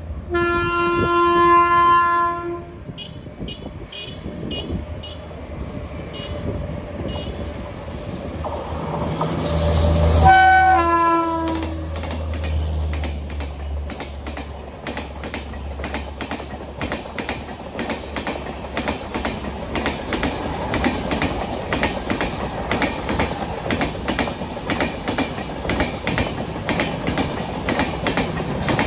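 Indian electric locomotive sounding its horn twice, a long blast and then a shorter one whose pitch falls as the train passes. After that comes the steady rumble and clickety-clack of LHB passenger coaches running past at speed.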